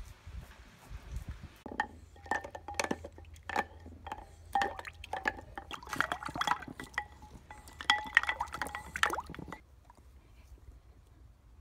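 A large dog lapping water from a bowl: a quick run of wet slurps with light clinks from the bowl, going on for several seconds and stopping near the end.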